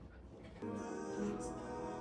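Background music: after a brief quiet moment, a song with sustained chords comes in about half a second in.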